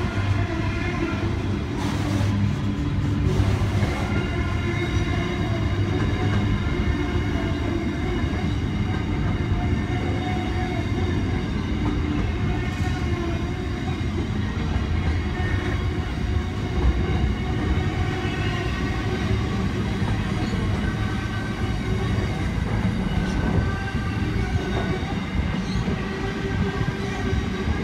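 Container wagons of a long intermodal freight train rolling steadily past on the near track: a continuous wheel-on-rail rumble with faint steady high tones over it.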